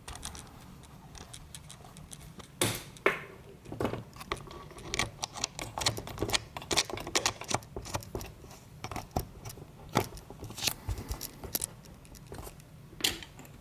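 Irregular light metallic clicks and taps of a disc-detainer padlock and its pick tool being handled, with a few sharper knocks.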